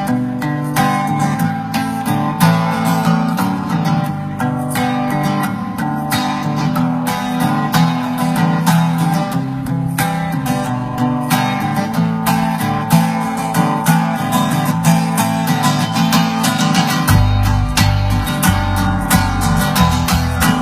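Strummed acoustic guitar playing a song's instrumental introduction in steady repeated strokes, with deep low notes joining in near the end.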